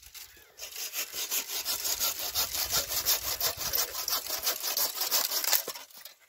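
Fast, regular scraping strokes, several a second, like a blade or saw rasping against something hard. They start about half a second in and stop shortly before the end.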